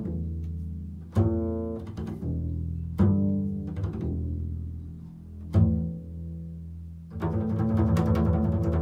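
Upright double bass played pizzicato: a few single low notes, plucked about two seconds apart, each ringing and fading away. Near the end comes a fast flurry of plucked notes.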